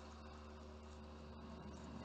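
Quiet room tone: a steady low electrical hum with hiss, and faint rustling of red origami paper as the curled petals are pressed together by hand.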